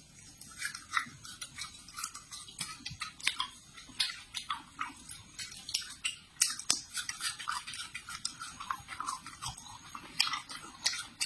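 Close-miked chewing of a zucchini flower: an irregular run of crisp crackles and wet mouth clicks, several a second.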